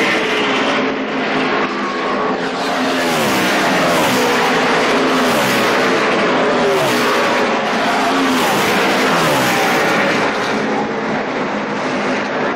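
NASCAR Sprint Cup stock cars' V8 engines running at speed in practice, several cars passing close by in turn. Each engine note falls in pitch as a car goes past, over a steady loud din of cars around the track.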